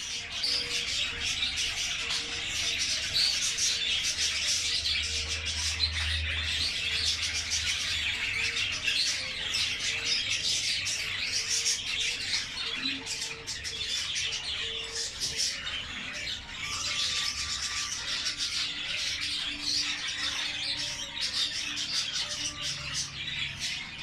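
Budgerigar chatter: a dense, unbroken stream of high chirps and warbles.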